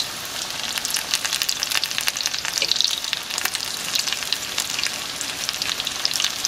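Breaded potato cakes frying in about an inch of hot oil in a cast iron skillet: a steady sizzle full of dense, fast crackling.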